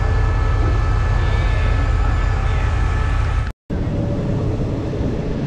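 Steady low rumble of a diesel train, heard at an open carriage window, with two faint steady whining tones above it. The sound cuts off abruptly about three and a half seconds in and picks up again as a lighter running rumble.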